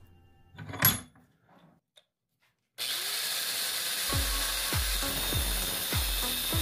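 A single sharp knock about a second in, then an angle grinder starts abruptly about three seconds in and runs steadily, its disc grinding down a steel bracket clamped in a vise.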